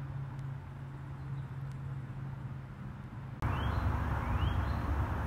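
Quiet outdoor background with a faint steady low hum. About three and a half seconds in it switches to a louder outdoor ambience with a low rumble, in which a bird gives two short rising chirps.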